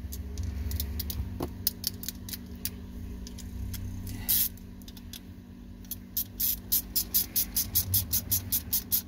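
Ratchet wrench clicking fast and evenly, about four to five clicks a second, from about six seconds in, as a 4 mm socket tightens small screws on a car starter motor. Before that, a few scattered clicks and a short rasp as the tools are handled, over a steady low hum.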